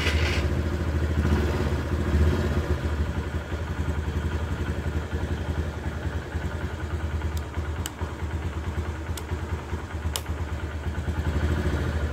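Honda New Megapro 2012's single-cylinder engine idling steadily, freshly started on the electric starter. A few faint clicks come in the second half.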